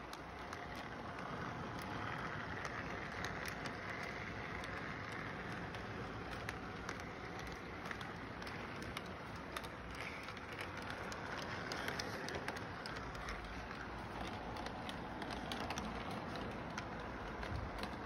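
Electric model train rolling along its track: a steady running rumble of wheels and motor, with scattered small clicks.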